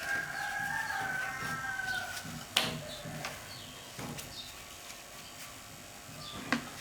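A rooster crows once, a drawn-out call of about two seconds that sags at the end. A few sharp knocks follow, the loudest soon after the crow ends.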